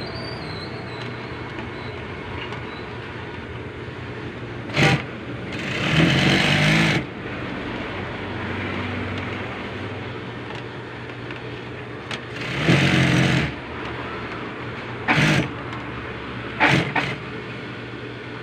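Sewing machine stitching in two short runs, each about a second and a half long, about 6 and 12 seconds in, over a steady motor hum. A few short knocks in between.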